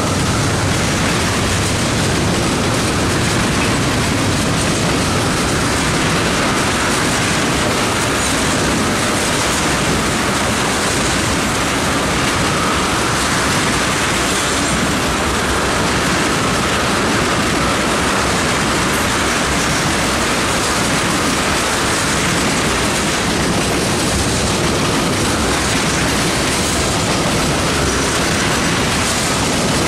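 A freight train of tank cars passing close by, its wheels running steadily and loudly over the rails.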